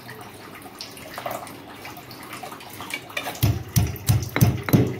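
Stone pestle pounding dried anchovies and garlic in a granite mortar: a few light clicks at first, then from about three seconds in a run of dull, regular thuds, roughly three a second.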